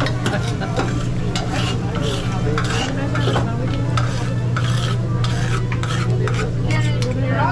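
Metal spatula scraping and clacking on a hot griddle while food sizzles, in quick irregular strokes over a steady low hum.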